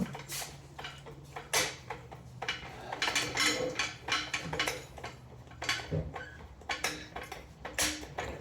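Metal clanks and clicks of a car jack being handled and pushed into position under the vehicle, many short knocks with a low steady hum until about six seconds in.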